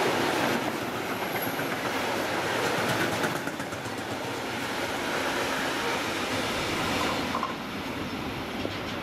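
Freight train of bogie hopper wagons rolling past: a steady rumble with wheels clattering over the rails, dying down near the end as the last wagon goes by.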